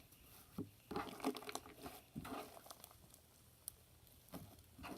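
Clear slime loaded with shaving cream being squished and kneaded by hand, making faint, irregular sticky clicks and squelches.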